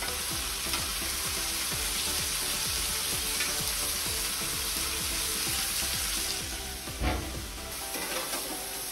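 Beef burger patties sizzling and crackling steadily on a hot gas-grill grate, with a short knock of the metal spatula about seven seconds in.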